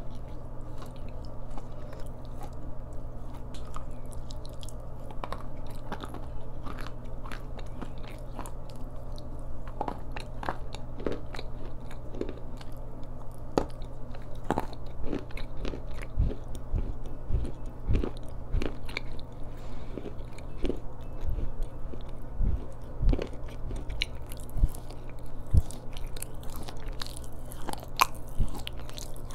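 Black slate cube being bitten and chewed right at a lavalier microphone: irregular dry crackles and snaps, with heavier crunches in the second half. A steady low hum runs underneath.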